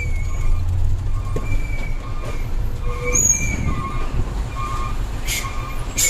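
Hino Ranger dump truck running on the road, its diesel engine a steady low rumble, with short high squeaks and creaks coming and going every second or so. Two sharp clicks near the end.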